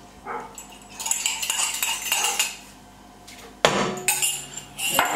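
A metal utensil clinking and scraping against a ceramic mug and a steel mixer bowl, in a few separate clatters, the loudest a sudden knock about three and a half seconds in.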